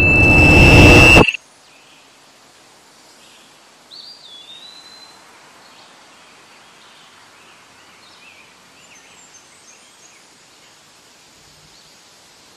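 A loud swelling rush of noise with a steady high whine builds and cuts off abruptly just over a second in. Faint outdoor garden ambience with birds chirping and one whistled bird note about four seconds in follows.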